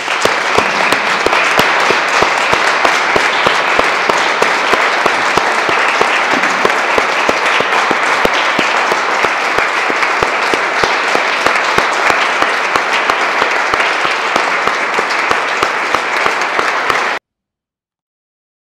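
Small audience applauding steadily with dense hand-clapping; it cuts off suddenly near the end.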